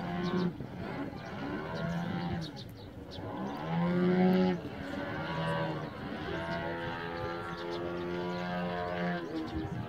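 Engine of a giant-scale Extra 330SC radio-controlled aerobatic model in flight. Its drone swells, fades and shifts in pitch with the throttle and manoeuvres, loudest about four seconds in, then held steady for a few seconds near the end.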